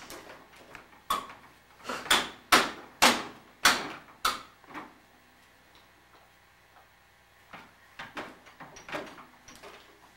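Hard plastic knocks and clacks from a baby banging on the toys and tray of a plastic activity centre: a run of sharp knocks about every half second for a few seconds, then a few quieter ones near the end.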